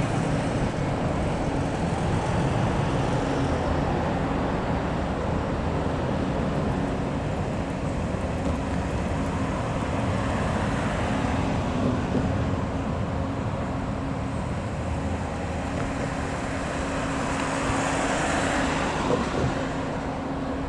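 Steady roar of a twin-engine jet airliner's engines during takeoff and climb-out, with a steady low hum underneath. The roar swells briefly near the end.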